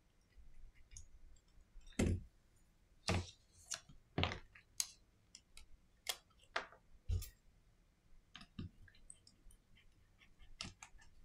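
Irregular clicks and light knocks of a small screwdriver, tiny screws and phone parts being handled on a silicone repair mat while a smartphone is taken apart. There are about ten separate clicks, the loudest about two seconds in.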